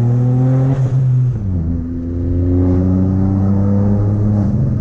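Chevrolet Onix 1.0 turbo three-cylinder engine with a downpipe and sport exhaust, accelerating hard. The engine note climbs, falls sharply at an upshift about a second in, then climbs again.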